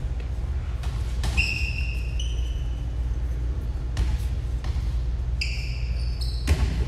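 Basketball bouncing on a hardwood gym floor, a few sharp thuds, with high squeaks of sneakers on the floor about a second in and again later, over a steady low hum in a large gym.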